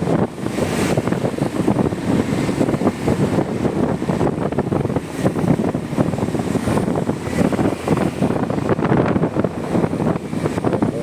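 Wind buffeting the microphone of a motorcycle moving at road speed, in gusts, over the steady noise of the bike on a wet road.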